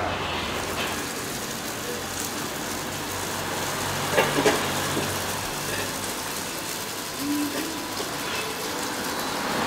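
Steady background noise of traffic and faint distant voices, with a few short clicks about four seconds in.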